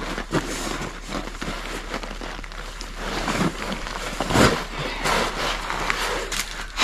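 Rustling and crinkling of nylon tent fabric, foam sleeping mat and gear as a person crawls about inside a small dome tent, with a heavier thump about four and a half seconds in.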